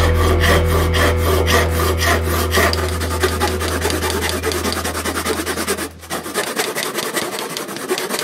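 Backsaw cutting a dyed maple burl block held in a vise: regular back-and-forth rasping strokes, about three a second at first and then quicker, with a short pause about six seconds in. A low steady drone fades out about two-thirds of the way through.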